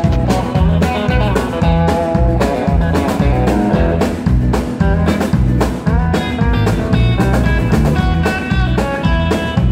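Live country band playing: electric guitar over drums with a steady beat.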